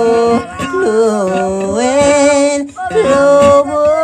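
Singing: a solo voice holds long notes and slides up and down between pitches, breaking off briefly about two thirds of the way in.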